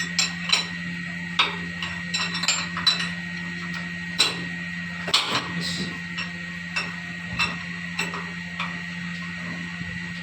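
Irregular metal taps and clinks of hand tools on engine parts during piston fitting on a Yanmar 6KFL marine diesel, about one or two a second, over a steady background hum.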